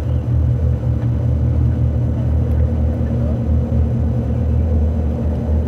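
Steady low rumble of a boat's engine running at an even speed.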